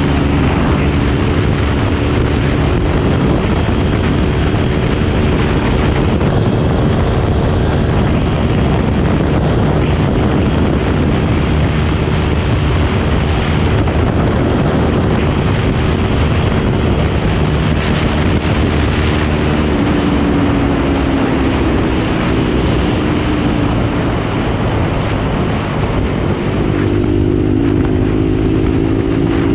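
Bajaj Pulsar NS 125 motorcycle engine running at speed, heard over heavy wind noise on the microphone. The engine note sags a little past the middle and climbs again near the end.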